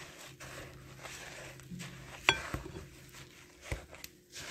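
A spoon hand-stirring dry rolled oats and flour into thick cookie dough in a mixing bowl: soft scraping and rustling, with one sharp clink of the spoon against the bowl about two seconds in and a duller knock near the end.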